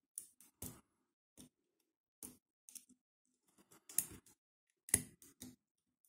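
Lock pick and tension wrench clicking and scraping against the pins inside a 50 mm Ruma padlock's keyway during picking: about a dozen short, irregular metallic clicks, the loudest about four and five seconds in.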